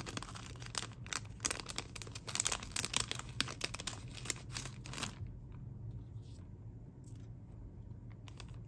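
Clear plastic sticker packet crinkling and crackling as fingers work a stack of stickers out of it, for about five seconds. Then it drops to faint, quiet handling.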